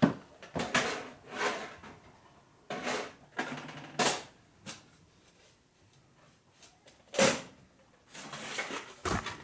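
Hard clanks, clicks and rattles of metal shop drawers and drill-bit boxes being opened and rummaged through, in separate bursts with quiet gaps between. The sharpest knocks come at the very start and a little after seven seconds in.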